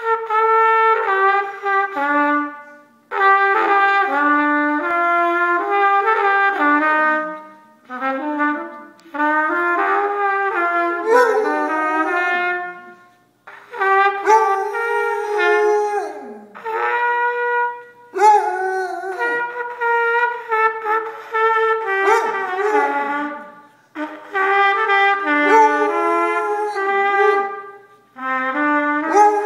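Trumpet playing a Christmas tune in short phrases with brief breaths between them. A basset hound howls along, its howls sliding up and down in pitch over the held notes.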